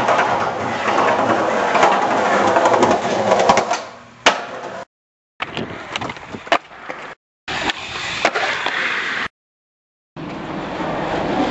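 Skateboard wheels rolling on concrete, then a sharp clack about four seconds in. After that come short stretches of board clacks and ledge-grinding scrape, cut off abruptly by gaps of dead silence, with rolling on concrete again near the end.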